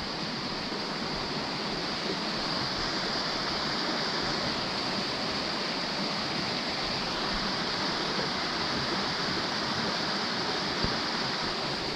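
Steady rush of flowing water, an even noise with no breaks, with one light knock near the end.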